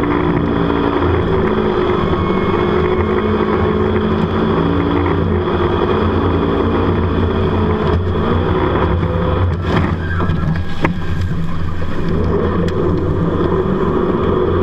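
Jet boat engine running hard at speed, its pitch shifting up and down as the boat turns, over a steady rush of water and wind on the microphone. Two brief knocks come around ten and eleven seconds in.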